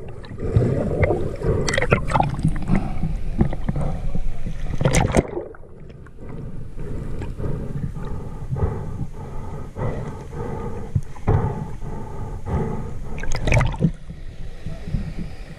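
Muffled river water heard through a submerged camera: rushing noise with many knocks, dropping suddenly quieter about five seconds in. Near the end, splashing as the camera breaks the surface.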